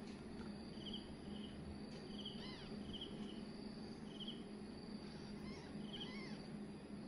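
Young kittens giving two faint, thin mews, a couple of seconds in and again near the end, over an insect chirping in short repeated pulses and a low steady hum.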